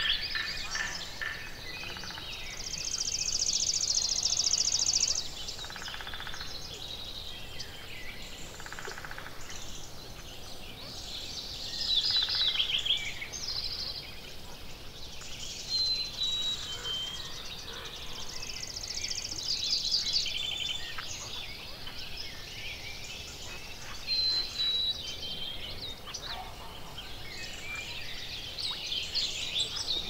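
Several songbirds singing and calling. A high, fast trill comes twice, from about three to five seconds in and again around nineteen seconds in, among shorter chirps and whistled notes, over a steady background noise.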